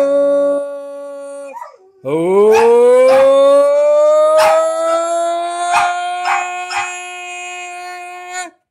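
A small dog howling: one long howl trails off about a second and a half in, then after a short pause a second howl rises steeply in pitch and holds for about six seconds before stopping. A few short, sharp sounds break in over the held howl.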